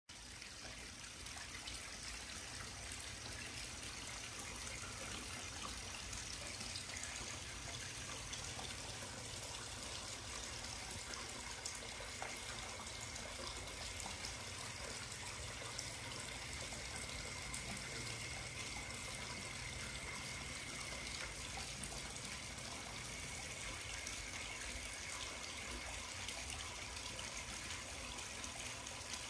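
Water flowing steadily into a backyard swimming pool, a continuous trickling rush. A faint steady high tone joins it partway through.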